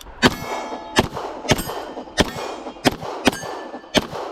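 A pistol firing a fast string of about seven shots at steel targets, each shot followed by the ringing clang of a steel plate being hit.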